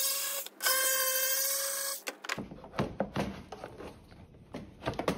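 A small cordless power tool's motor whining at a steady pitch, running briefly, stopping for a moment, then running again for about a second and a half. After it stops, scattered knocks and clicks of the plastic fan shroud being handled and lifted off.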